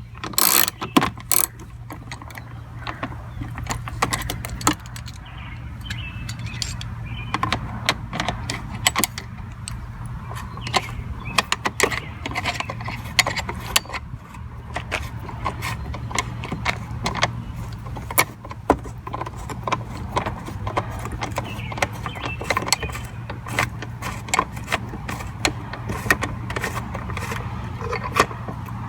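Metal clicks and clinks of a 10 mm socket wrench with an extension working a tail light bolt loose on a Jeep Cherokee XJ. The clicks are irregular, over a steady low hum.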